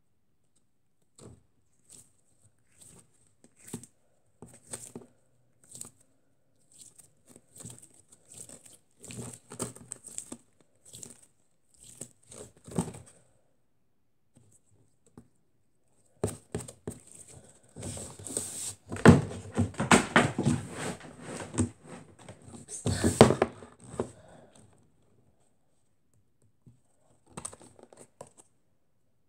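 A glitter-filled squishy stress ball squeezed and rubbed right at the microphone: irregular crackling, crinkling handling noises that grow dense and loud for several seconds past the middle. A few faint clicks near the end as the lid comes off a plastic tub of noise putty.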